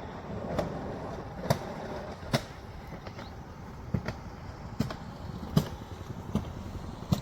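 Footsteps at a steady walking pace, a sharp step roughly every 0.8 seconds, over a low steady background rumble.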